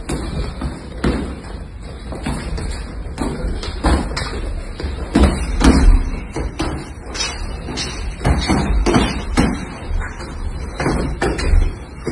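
Gloved punches landing on padded mitts and gloves in an irregular string of sharp thuds, the hardest a few seconds apart near the middle.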